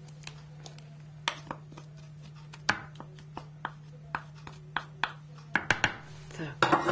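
Metal garlic press squeezing garlic cloves over a glass bowl: scattered sharp clicks and light knocks from the press, with a quick run of taps about five and a half seconds in. A steady low hum runs underneath.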